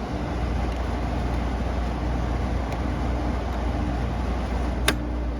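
Carrier UC series 5,000 BTU window air conditioner running on low cool: steady fan airflow with a low hum from its Tecumseh rotary compressor. A single sharp click about five seconds in.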